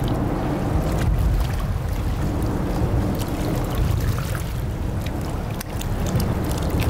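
Boat running on open water: a steady low rumble with wind and water noise and scattered small clicks.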